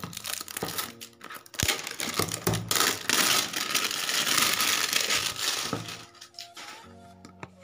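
Cardboard retail box and packaging of a 1TB SATA hard drive being handled and opened, with clicks and crinkling, then a loud stretch of rustling and scraping in the middle. Soft background music comes through near the end.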